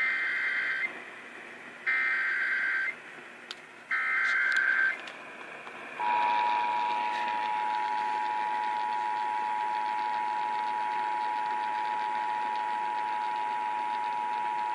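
Emergency Alert System activation heard over a radio broadcast. First come three one-second bursts of SAME header data tones, a second apart. Then the two-tone EAS attention signal starts about six seconds in and is held steady for about nine seconds, the signal that a broadcast emergency alert message follows.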